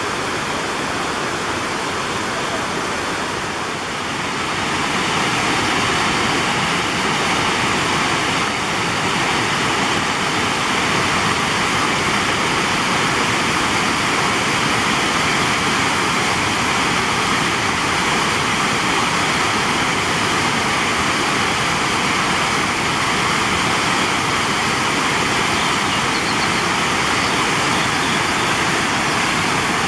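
Twin Falls, a 31-foot waterfall, pouring over a rock ledge into its pool: a steady rush of falling water that grows louder about five seconds in, then holds even.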